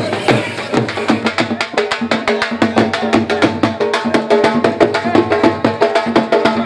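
Dhol drumming a fast, even beat of sharp strikes, several a second, with a steady held tone underneath.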